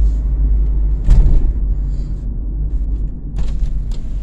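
Low steady rumble inside a car, with a thump about a second in and a few clicks near the end as the phone filming is handled and turned around.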